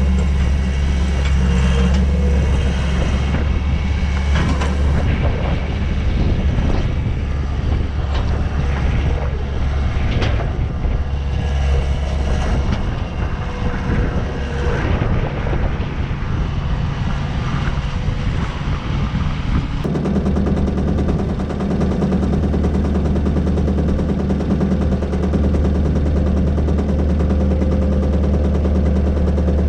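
An engine running steadily, with scattered knocks and clanks over the first twenty seconds; the engine note changes suddenly about twenty seconds in.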